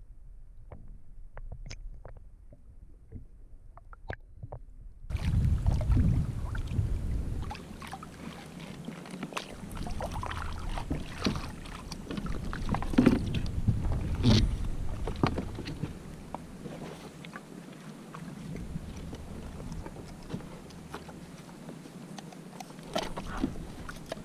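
Muffled underwater rumble with a few faint clicks. About five seconds in this changes to wind buffeting the microphone, with irregular water splashes and knocks as a hooked giant trevally is pulled alongside a kayak by the leader and lifted aboard.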